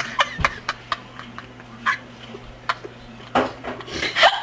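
A person hiccuping: a string of short, sudden hiccups spaced unevenly, with a louder, longer one about three and a half seconds in.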